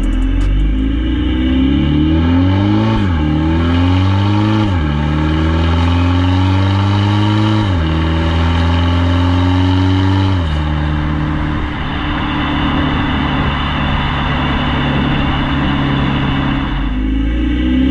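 VW Tiguan 2.0 TDI diesel with a modified exhaust, accelerating moderately through the gears of its DSG gearbox in manual/tiptronic mode with shifts at about 3000 rpm. The engine note climbs and drops sharply at four upshifts, holds steady at a cruise for several seconds, and starts climbing again near the end.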